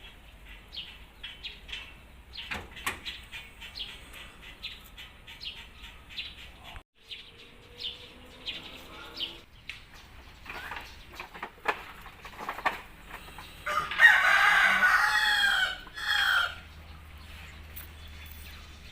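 A rooster crowing once loudly, a long call with a short final note, over a background of short chirps and clicks.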